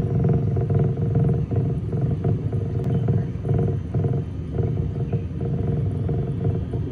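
Steady low rumble of water churning through a flow test tank, with an uneven pulsing.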